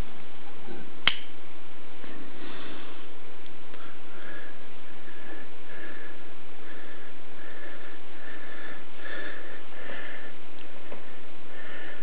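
A Spyderco Military folding knife with a titanium frame lock gives one sharp metallic click about a second in as the blade is folded shut. This is followed by a run of soft, short noises repeating about every two-thirds of a second.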